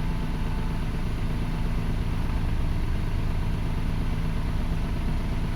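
Toyota Passo petrol engine idling steadily, a low, even running sound.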